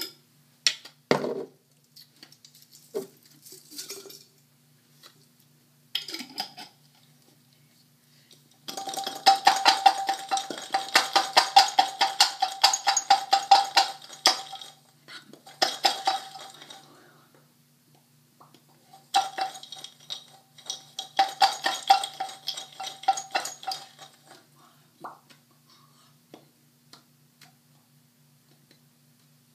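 Garlic cloves rattling inside a glass jar shaken hard, the jar-shaking way of loosening the skins. There are three bouts of fast rattling, a long one about nine seconds in, a short one after it, and another about nineteen seconds in, after a few scattered knocks.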